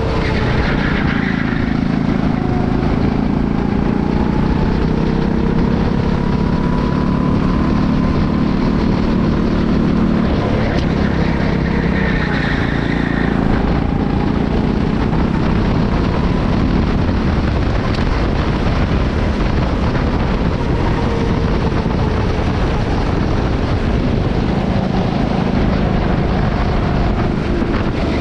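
Rental go-kart's Honda engine running steadily at speed, heard from onboard over a low rumble of wind and vibration. The engine note rises and falls gently as the kart speeds up and slows.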